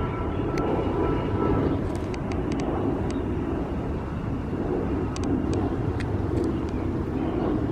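Steady low outdoor rumble, with a few faint short ticks scattered through it.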